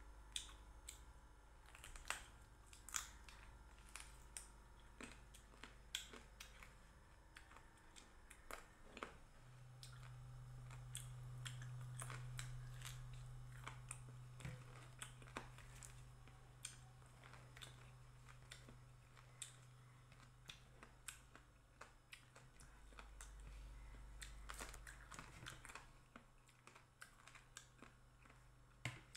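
Quiet mouth sounds of someone eating roti and chicken curry by hand: chewing with many soft, irregular clicks and smacks. A low steady hum joins in about ten seconds in.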